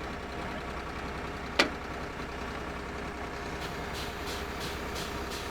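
Drill rig's engine running steadily, with one sharp metallic clank about a second and a half in. Near the end a faint regular ticking, about three a second, joins it.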